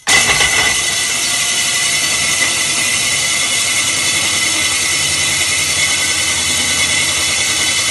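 DeWalt 18V XR cordless drill with a large core bit (hole saw) boring into a wall to cut the hole for a boiler flue pipe. It starts abruptly and runs at a steady speed, a loud, high-pitched cutting noise with a steady whine.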